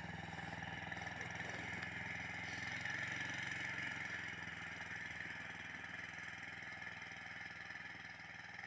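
Uragan Taiga motorized snow tow's engine running steadily as it drives off through the snow, its sound slowly fading over the second half.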